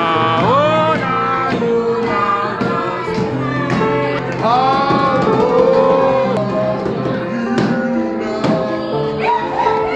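A song: singing voices over instrumental accompaniment, cutting in abruptly at the start.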